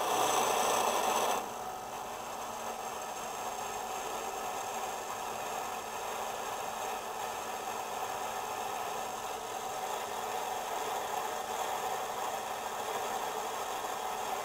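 Small bench drill running, its 2.7 mm bit drilling the wrist-pin hole through a cast-iron model-engine piston. It is louder for about the first second and a half, then settles into a steady whir.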